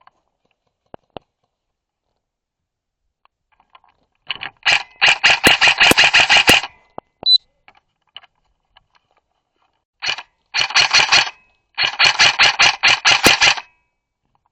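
Airsoft rifle firing three rapid full-auto bursts, a longer one about four seconds in and two close together near the end, with a few single clicks early.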